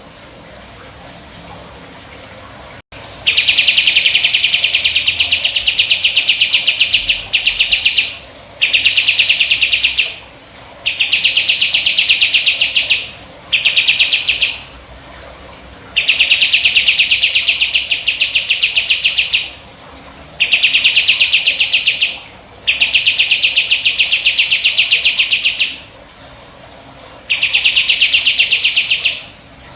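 A 'jenggot' songbird singing rapid-fire 'tembakan' bursts: about nine fast, evenly pulsed trills, each one to three seconds long, starting about three seconds in with short pauses between them.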